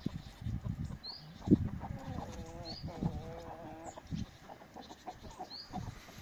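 Free-ranging farmyard chickens clucking and calling, with a drawn-out wavering animal call about two seconds in, a few short high chirps, and a sharp knock about a second and a half in.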